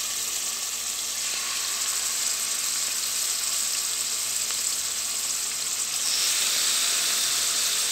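Marinated beef chunks sizzling in hot oil in a frying pan as more pieces are laid in with tongs; the sizzle gets louder about six seconds in as the pan fills.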